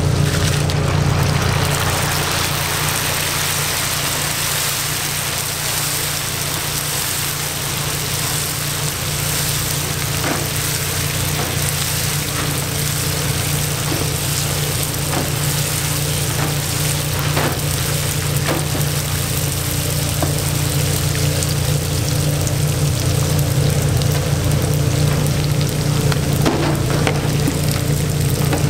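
Deep-frying oil sizzling densely as a batch of bugak (rice-paste-coated crisps) is tipped into a steel fryer and turned over with a wire mesh strainer, with occasional light clinks of the strainer against the metal. A steady low hum runs underneath.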